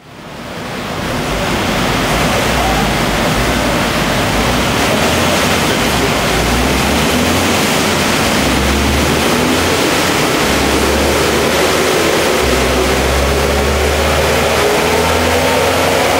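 Toyota Celica ST202's 2.0-litre four-cylinder engine running under load on a chassis dynamometer, its pitch climbing steadily through the last few seconds as the revs rise, over a loud steady rushing noise. The owner says the car makes only about 160 hp because of electronic problems.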